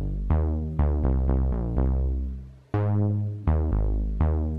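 Background music: an electronic track of synthesizer notes that strike and fade, over a deep bass.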